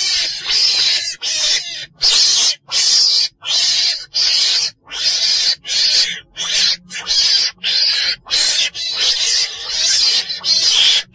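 Repeated calls of a chồn đèn, a small weasel, played as a hunting lure: short, rasping, high cries of about half a second each, about three every two seconds, with brief silent gaps between them.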